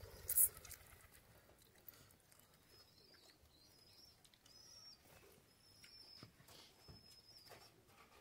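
Faint, short, high chirps of a small bird repeated several times from about three seconds in, over soft clicks of hands mixing rice on steel plates. A brief sharp hiss-like noise comes just after the start.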